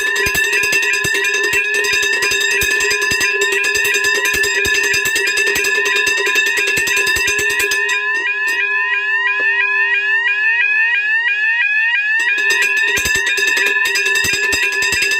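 Several fire alarm signalling devices sound together: electronic tones sweep upward several times a second over a steady low horn tone and a rapid clicking clatter. About eight seconds in, the low tone and clatter cut out for roughly four seconds, leaving only the sweeping tones, then come back.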